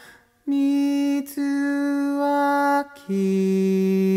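Slow, gentle sung Japanese children's song with long held notes: after a brief pause, three sustained notes, the last one lower.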